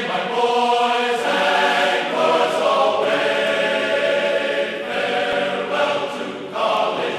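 Intro music of choir voices singing long held chords that change every second or so.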